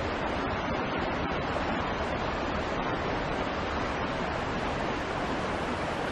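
Shallow river rushing over a stony bed: a steady, even rush of water.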